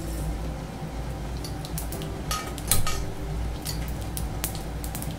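Mustard seeds crackling and popping in hot oil in a stainless-steel kadai, a scatter of sharp ticks with a cluster of louder clinks about two and a half seconds in, over a steady low hum.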